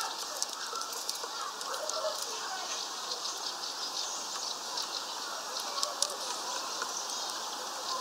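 Small songbirds chirping and twittering at a seed feeder: many short, high calls come in quick, uneven succession over a steady outdoor background.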